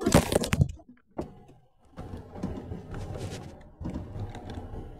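Handling noise of a phone's microphone as the phone is moved and covered: loud knocks and rubbing at the start, a brief near-silent gap, then softer rustling and a few clicks over a low steady hum.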